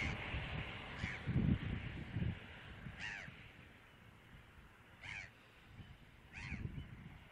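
A large bird calling four times, short calls about two seconds apart, over gusts of wind buffeting the microphone.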